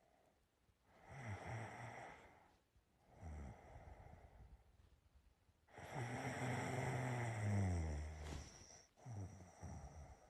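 A person snoring in their sleep: four snoring breaths with a low rattling buzz. The third is the longest and loudest, about six to eight seconds in.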